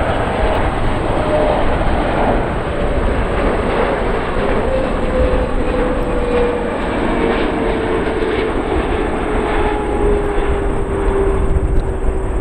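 Jet airliner engines running loud: a rushing noise with deep rumble, and a whine that falls slowly in pitch.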